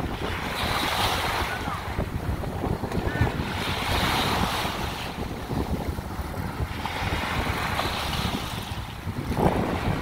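Small sea waves breaking and washing up on a sandy shore, the surf swelling and easing every few seconds, with wind buffeting the microphone.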